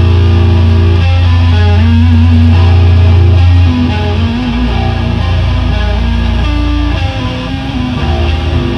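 A rock band playing live: an electric guitar riff over a heavy, sustained bass, without vocals.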